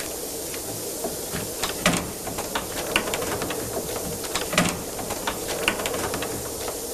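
Scattered clicks and clunks at a wooden door, with two louder thuds about two seconds and four and a half seconds in, over a steady hiss.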